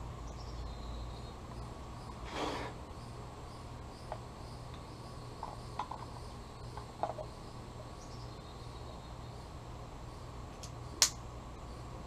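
Hands working the spark plug wires at the distributor cap of a Willys L134 engine: a short rustle, a few small ticks and one sharp click about eleven seconds in, over a faint steady hum.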